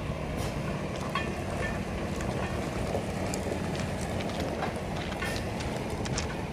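Medium-duty tow truck's engine running steadily as it pulls a forklift slowly over gravel, with scattered clicks, crackles and rattles from tires on gravel and the towing gear.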